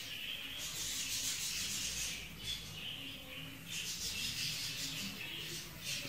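Budgerigars chirping and chattering, in two stretches of about two seconds each.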